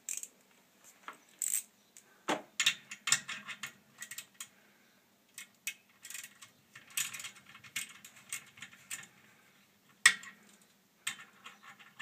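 Irregular metallic clicks and clinks as hands work at the motor and pump retaining clips on the underside of a direct-drive washing machine, with one sharp click about ten seconds in.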